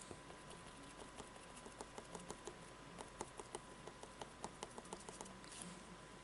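Faint, quick taps of a round sponge dauber stippling paint onto a cardboard panel, several a second, stopping about five seconds in.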